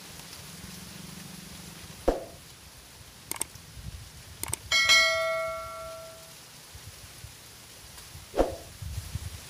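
A small metal bell struck once about five seconds in, ringing with several high overtones that fade over about a second and a half, after a few light clicks. Two dull thumps come about two seconds and eight and a half seconds in.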